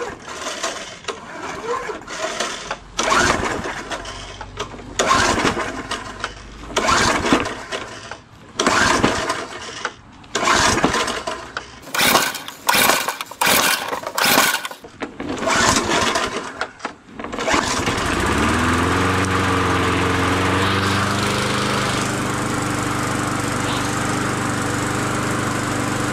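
Walk-behind lawn mower's small engine being pull-started over and over, a dozen or more pulls, until it catches about eighteen seconds in, speeds up and settles into a steady run. This is its first start after about eight years of sitting, on fresh fuel and fresh oil.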